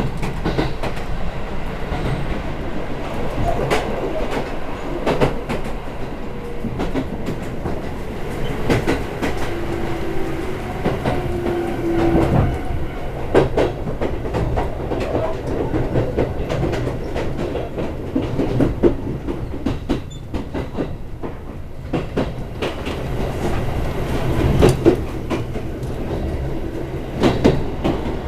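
Chichibu Railway express train running at speed, heard from inside the passenger car: a steady rumble with repeated clicks of the wheels over rail joints, and a brief faint whine about ten seconds in.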